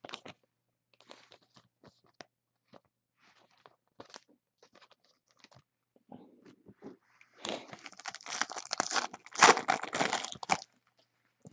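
A foil trading-card pack being torn open, with loud crackling and crinkling of the foil wrapper from about seven and a half seconds in to about ten and a half. Before it there are only a few faint clicks.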